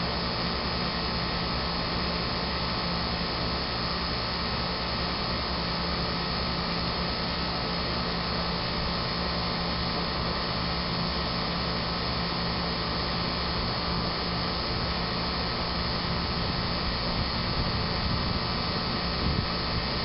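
York 2.5-ton central air conditioner's outdoor condenser unit running steadily, a constant hum under even fan noise.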